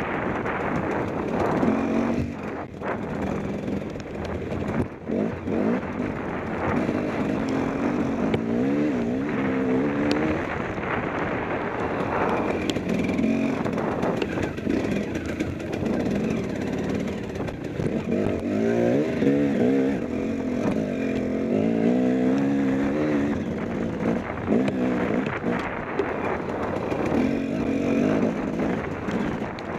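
KTM 250 XC-W two-stroke dirt bike engine, heard from the rider's helmet, revving up and down again and again as the bike is ridden hard along a wooded trail, with occasional knocks.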